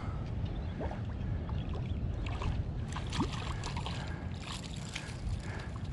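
Water lapping and splashing at the shoreline, with a steady low rumble of wind on the microphone and scattered small splashes and crackles.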